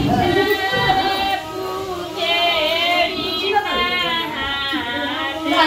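Women's voices singing a song together in high, wavering tones, with some talk mixed in.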